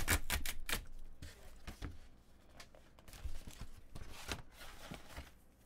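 A tear strip is ripped along a sealed paper envelope: a quick run of sharp rips in the first second, then softer rustling and crinkling of the paper as it is pulled open.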